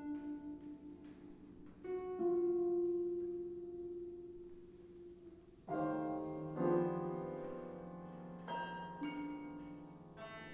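Chamber ensemble of piano, harp, clarinet and other instruments playing sparse contemporary music. Single notes ring and slowly fade, then a fuller piano chord enters about halfway through, and further notes are struck over its decay.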